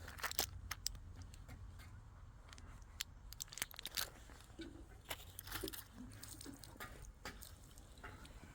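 Irregular small clicks and light crunching over a low steady hum.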